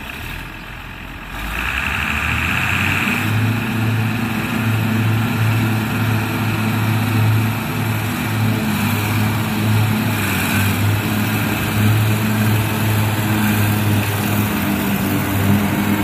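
Allis-Chalmers 7020 tractor's six-cylinder diesel engine running, with its PTO-driven Lastec 721 rotary mower. It gets louder about a second and a half in, then holds a steady low drone.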